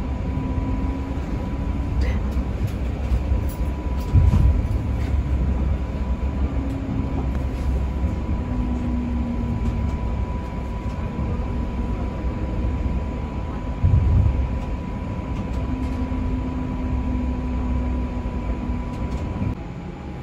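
Inside a moving streetcar: a steady low rumble of the car running on its rails, with a thin steady high tone over it and two louder jolts, about four and fourteen seconds in. The rumble drops off near the end.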